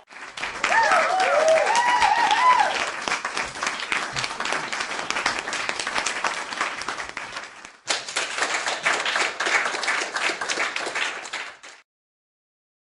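A crowd applauding, with cheers in the first couple of seconds; the clapping fades away. A second round of crowd applause starts suddenly about eight seconds in and fades out about a second before the end.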